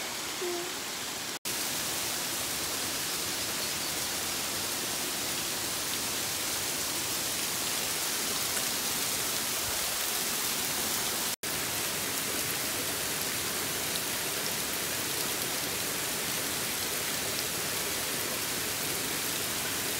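Small waterfall splashing down a rock face, a steady rushing hiss. It breaks off for an instant twice, about a second and a half in and again about eleven seconds in.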